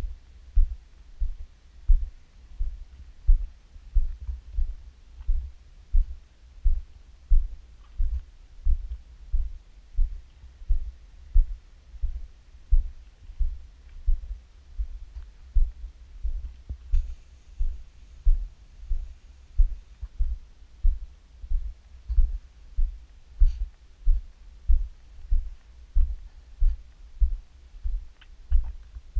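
Dull low thumps about two a second, uneven in strength: the footfalls of someone walking on a gravel path, carried into the microphone through the hand-held camera mount.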